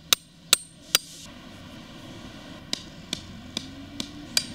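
Hammer blows driving a stake into the ground for a string-line layout, each strike a sharp ringing knock. Three loud blows come close together in the first second, then after a pause a run of lighter ones at about two a second.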